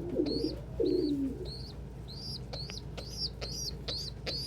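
Young domestic pigeons (squeakers) peeping: a string of short high peeps, sparse at first and coming faster toward the end. Adult pigeons coo low in the first second or so.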